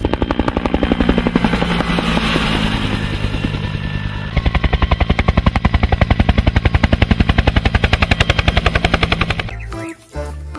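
Helicopter rotor chopping: a rapid, even beat of blade pulses over a steady low hum. It gets louder about four seconds in and stops about a second before the end.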